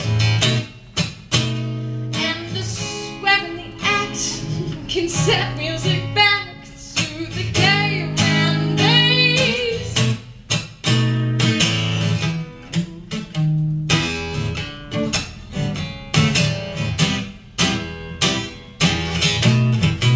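A woman singing to her own strummed acoustic guitar. Her voice, with vibrato, is heard mostly in the first half, and steady guitar strumming carries the rest.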